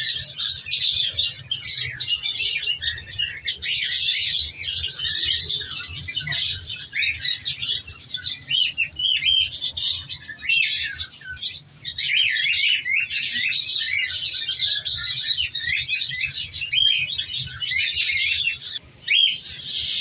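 A flock of cockatiels chirping and calling nonstop, many short overlapping calls at once, with two brief lulls, about twelve and nineteen seconds in.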